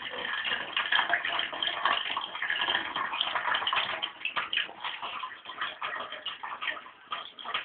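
Thin stream of water from a kitchen tap splashing into a stainless-steel sink, with irregular light clicks and taps throughout.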